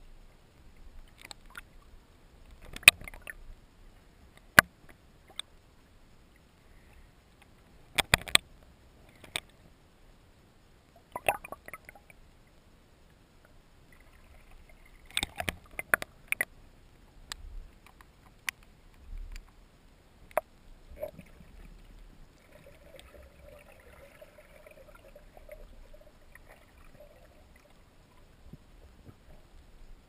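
Underwater sound as heard by a submerged camera: scattered sharp clicks and knocks, some in quick pairs, over a low water rumble, with a faint steady hum for a few seconds near the end.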